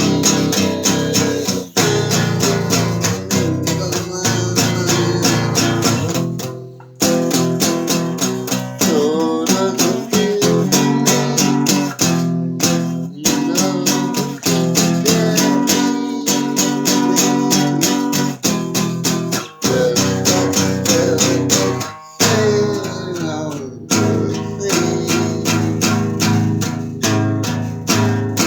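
Acoustic guitar strummed in a steady rhythm, playing chords with brief breaks a few times.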